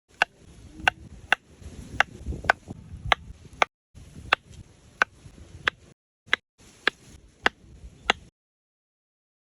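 Sharp knocks repeating roughly every half second over a faint rustle, in short stretches that cut in and out abruptly.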